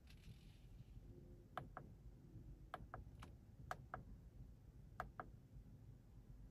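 A quiet background with sharp clicks, mostly in pairs about a fifth of a second apart, five times over a few seconds.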